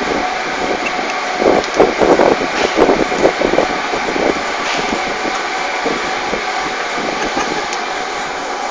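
Steady mechanical rushing background noise, with a flurry of small irregular clicks and knocks from hands working small metal objects at a counter, from about one and a half to four and a half seconds in.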